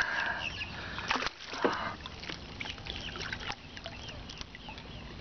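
Hooked largemouth bass thrashing at the surface beside the boat, with a couple of sharp splashes in the first two seconds. Birds chirp in the background.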